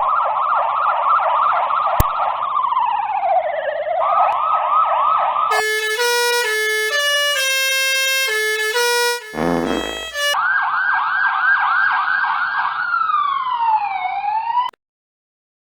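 Police siren sound effect cycling in fast up-and-down yelps, with one slower glide down between them. It breaks off about halfway for a short tune of held electronic notes and a falling pitch swoop. Then the siren yelps again and cuts off suddenly near the end.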